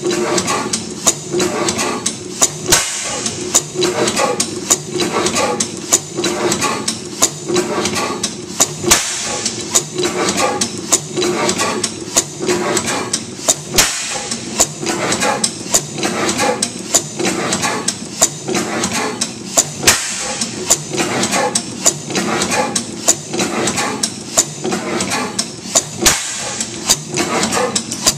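15 HP St. Mary's sideshaft hit-and-miss gas engine running, with repeated sharp clacks from its drop-cam igniter and mechanical valve gear over a steady mechanical clatter.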